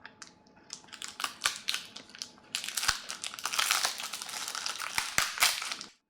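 Crinkling and crackling with sharp clicks, growing dense about two and a half seconds in, then cutting off abruptly near the end.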